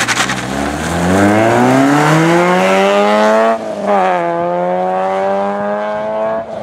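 Peugeot 106 rally car's four-cylinder engine accelerating hard, its pitch climbing steadily for about three and a half seconds. After a brief dip it holds a steady high note as the car pulls away. A short crackle sounds at the very start.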